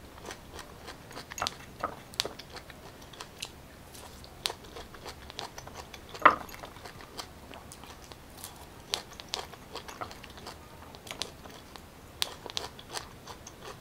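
Close-miked chewing and biting of raw pineapple: irregular crunchy, moist clicks, with one louder click about six seconds in.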